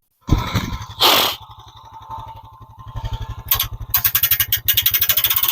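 A small engine starts suddenly and runs with an even, rapid firing beat, then revs up, louder and harsher, from about three and a half seconds in.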